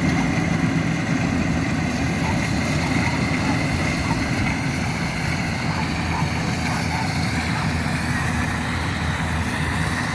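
Yanmar AW70V combine harvester running steadily, its diesel engine rumbling low with a thin, steady high whine over it.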